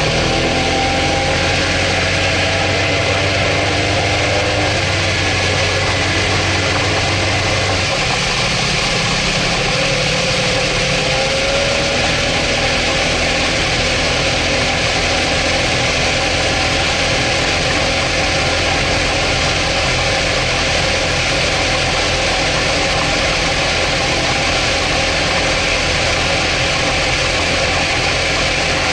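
Evinrude 225 H.O. two-stroke V6 outboard running steadily under load while towing, over a constant rush of wake spray and wind.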